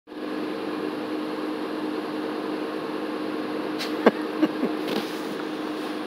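Car engine idling with a steady hum near the exhaust. A few brief sharp sounds with a quick falling pitch come about four seconds in.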